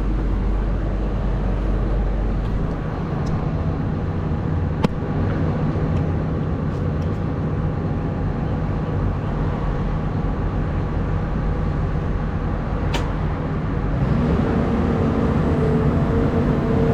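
Caterpillar 323 excavator's diesel engine running steadily, with a couple of sharp knocks. Near the end the engine note rises and gets louder as the machine is put to work.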